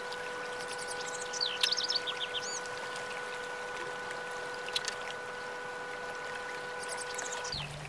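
Small birds chirping in quick high trills, a few times, over a steady water-like hiss, with a faint steady hum that cuts off abruptly near the end.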